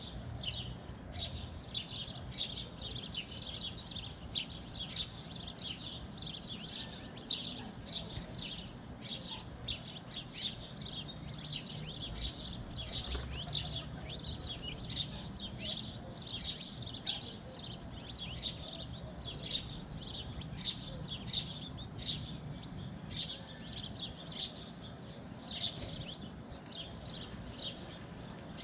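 Gambel's quail chicks peeping, short high chirps repeated several times a second, over a steady low rumble.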